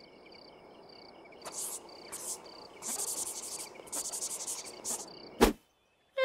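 Crickets chirping in regular high pulses and trills, a night-time ambience, ending in a sharp click about five and a half seconds in, after which the sound cuts off.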